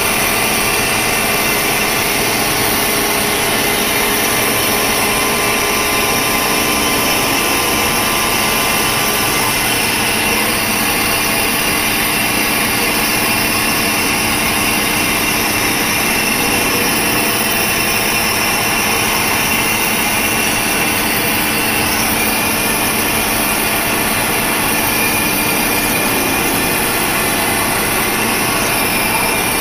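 CNC vertical milling machine running an end mill through a steel mold block: a steady spindle and cutting noise with faint high tones running through it.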